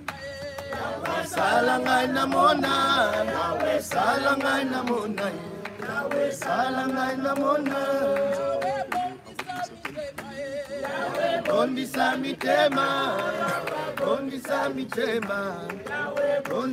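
A group of people singing a hymn together, unaccompanied, with short pauses between phrases.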